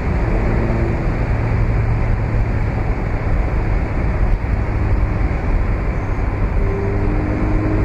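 Mazda MX-5 roadster driving at steady revs with the top down. Its four-cylinder engine holds a low, even drone under a loud, steady rush of wind and road noise in the open cabin.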